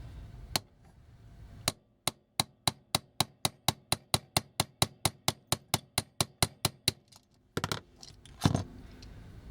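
Sharp clicks in a very even run, about five a second for about five seconds, then a few louder knocks near the end, from hand tool work on a small toy.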